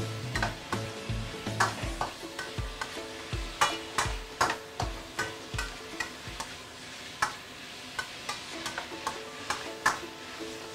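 Metal spatula scraping and clinking against a stainless steel wok at irregular intervals while diced chicken stir-fries with a light sizzle.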